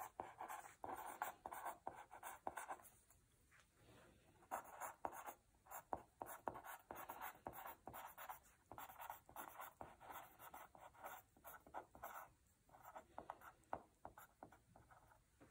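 Pen writing on a paper worksheet: faint, scratchy strokes in quick runs, with a pause of about a second and a half some three seconds in.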